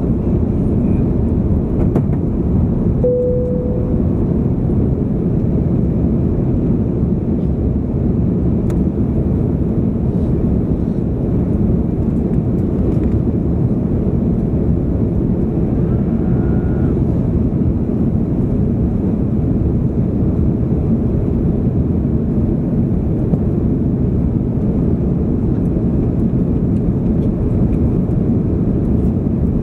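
Steady low rumble of a Hong Kong Airlines Airbus A330-300 in flight on approach, engines and airflow, heard inside the cabin. It stays level throughout, with a brief faint tone about three seconds in.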